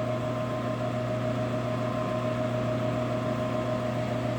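Milling machine motor and spindle running steadily, with an even whine over a low hum.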